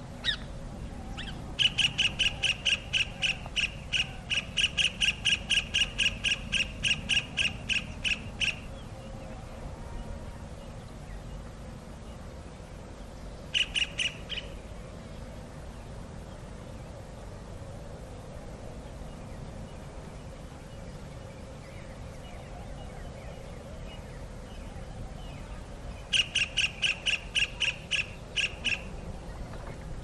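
Kingfisher calling: a rapid series of shrill, sharp notes at about four a second, in a long bout of about seven seconds, a short burst about halfway through, and another bout near the end, over a steady low background hiss.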